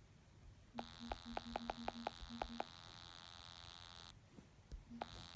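A steady high-pitched hum with a buzzing edge switches on about a second in, with a quick run of about nine clicks during its first two seconds. It cuts off abruptly a few seconds later and starts again near the end, with another click.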